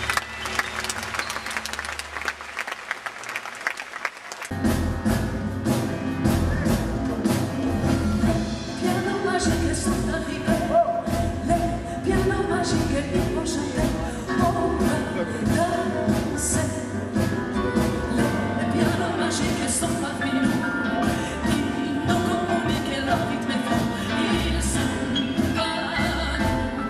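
Audience applause dies away, and about four and a half seconds in a live band starts up, with grand piano, double bass and singing.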